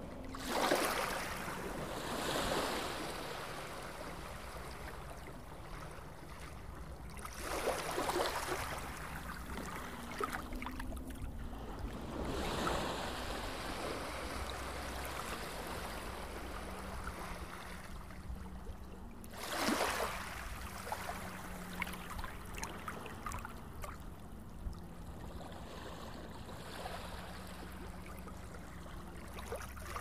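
Small sea waves lapping and sloshing against a camera held at the water's surface: a steady wash of water broken by several louder sloshes a few seconds apart.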